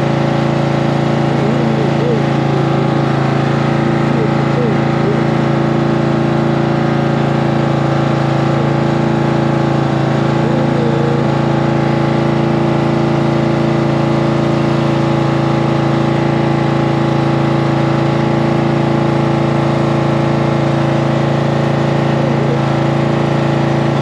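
Cub Cadet riding mower's engine running at a steady idle, its speed unchanging.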